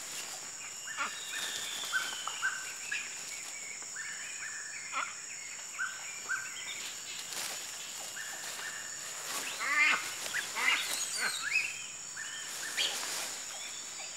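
Rainforest ambience: a steady high-pitched insect drone under many short repeated animal calls. A louder flurry of calls and noise comes about ten seconds in.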